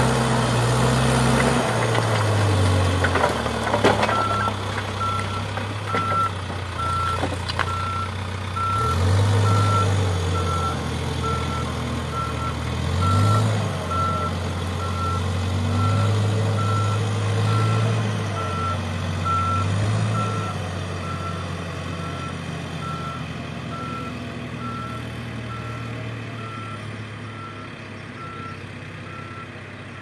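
Case backhoe loader's diesel engine revving up and down as it scoops rock, with a few knocks of rock against the bucket early on, then a backup alarm beeping steadily about once a second from about four seconds in while the engine settles and fades.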